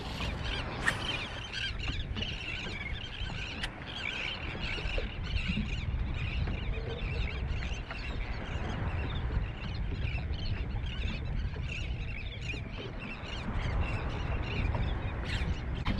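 Birds calling over and over in short chirps, over a steady low rumble.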